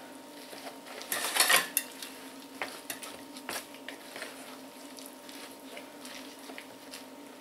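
A mix of grated zucchini, egg and chopped greens being stirred in a plastic bowl: a short run of wet scraping about a second in, then scattered light clicks and taps, over a faint steady hum.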